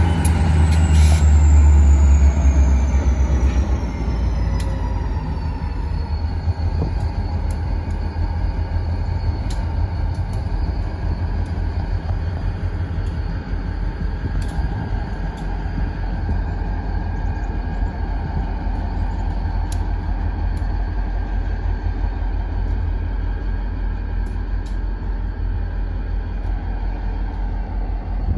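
Two Maine Central diesel-electric locomotives pulling a cut of tank and container cars away during yard switching, their engines running with a deep, steady rumble. A high whine falls in pitch over the first several seconds as the loudest part fades about four seconds in.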